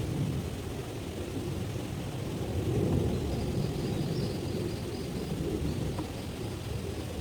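A low, uneven rushing rumble that swells and fades. Near the middle, a faint high-pitched trill sounds for a couple of seconds.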